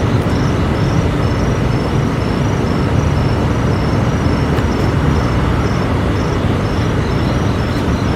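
Steady, loud low rumbling drone of unidentified origin, the mystery noise that residents reported, holding even without breaks.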